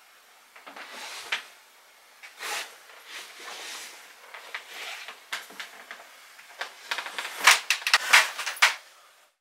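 Blankets and bedding rustling and being shifted as a person climbs into bed, with scattered knocks and bumps. It grows busiest and loudest from about seven seconds in.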